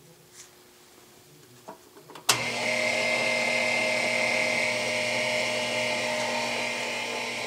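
A switch clicks about two seconds in, and the add-on power-feed motor of a 12-inch Atlas lathe starts. It runs steadily with a hum and a high whine, driving the carriage along while the spindle stays stopped and nothing is cut.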